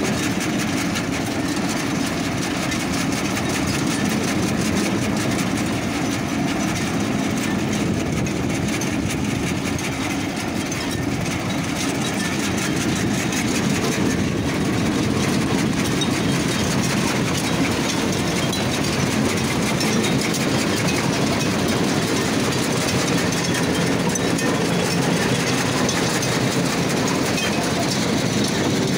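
Tractor engine running steadily under load, mixed with the continuous rattle and clatter of the PTO-driven hopper implement it is pulling through soil.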